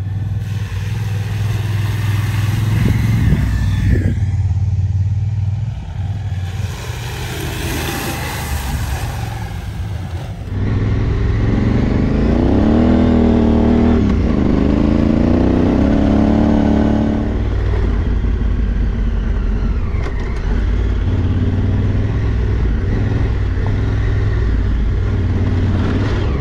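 Adventure motorcycle engine running under way, heard from on board the bike for most of the stretch. About halfway through, the engine note rises and falls several times as the rider opens and closes the throttle through the gears, then it settles to steady running.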